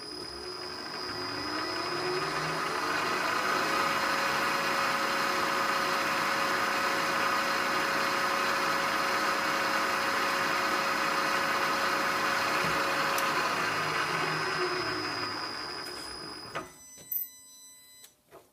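Milling machine spindle spinning up with a rising whine, then running steadily while a center drill in the drill chuck bores into a steel blank. It winds down with a falling tone and stops about sixteen seconds in, followed by a few sharp clicks.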